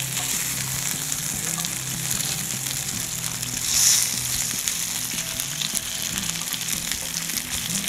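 Food sizzling in a hot pan: a steady crackling hiss that swells louder briefly about four seconds in.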